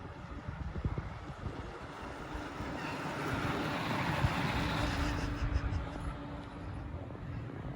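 Outdoor background noise: wind buffeting the microphone with a low rumble, while a vehicle passes, swelling about halfway through and then fading.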